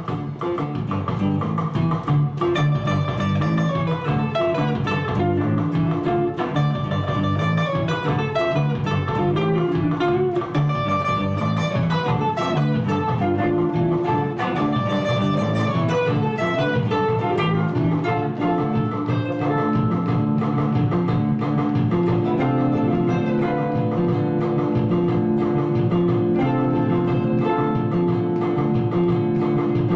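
Instrumental music led by plucked strings, guitar-like, picking a melody in separate notes over bass notes.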